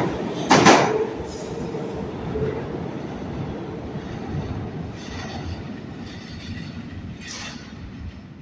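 Subway train running on the rails, with a few sharp wheel clatters in the first second and a faint squeal about seven seconds in. Its rumble then fades steadily away.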